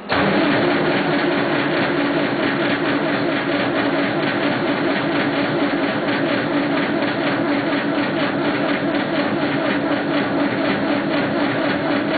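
Massey Ferguson 50D backhoe's diesel engine being cranked over by its starter on a cold start, a steady, evenly pulsing churn that begins abruptly and goes on without the engine catching.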